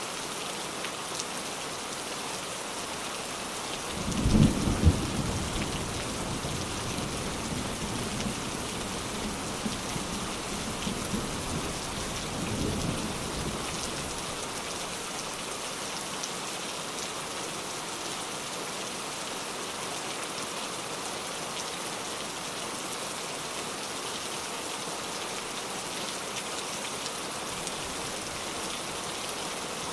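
Steady heavy rain falling, with a loud crack of thunder about four seconds in that rumbles on for several seconds before dying away under the rain.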